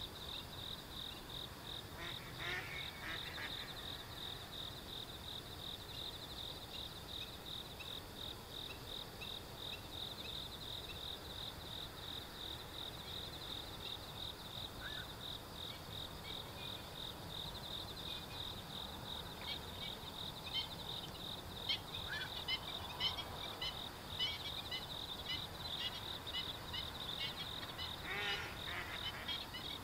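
Insects trilling steadily in a fast, even pulse. Over them come black-winged stilts' short sharp calls, in a busy run in the second half, and a few lower calls from eastern spot-billed ducks and a black-crowned night heron.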